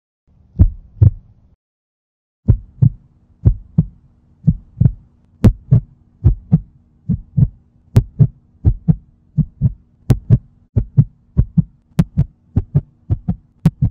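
Heartbeat sound effect, a steady lub-dub of paired low thumps over a faint low hum. It stops briefly after the first beat, then resumes and speeds up towards the end.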